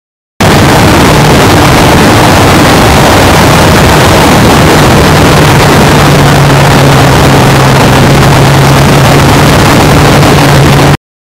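1991 Yamaha FZR1000's inline-four engine running steadily while the bike cruises on an open road, under heavy wind rush. The sound cuts in suddenly just after the start and cuts off abruptly just before the end.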